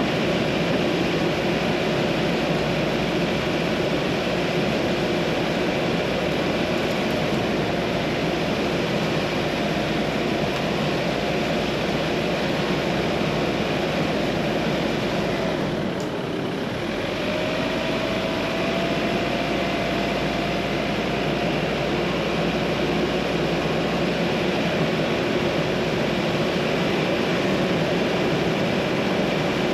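Car driving steadily along a narrow lane: a continuous rush of engine and tyre noise with a faint engine hum. The sound dips briefly about halfway through, then the hum returns slightly higher and rising a little.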